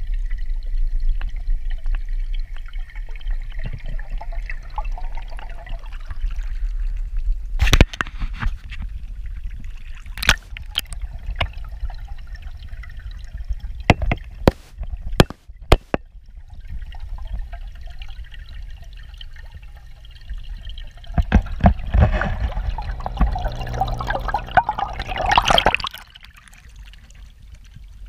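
Muffled pond water trickling and rumbling, heard through a submerged GoPro, with a few sharp knocks scattered through the middle. Near the end a louder churning splash builds, then cuts off suddenly.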